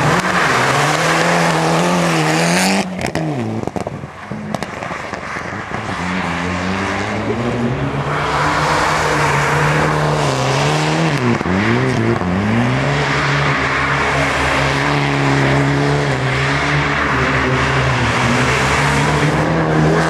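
Mitsubishi Lancer Evolution rally car's turbocharged four-cylinder engine revving hard through a run. The pitch holds high, then dips sharply and climbs again at gear changes and lift-offs, about three seconds in and again near the middle. A steady hiss of tyres throwing slush and grit runs beneath it.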